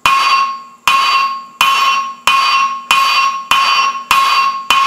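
A ball-peen hammer strikes hot spring steel on a JHM anvil eight times in a steady rhythm, about two-thirds of a second apart. Each blow leaves a clear metallic ring that fades before the next, as the end of the bar is set down into a groove to start forging the ears.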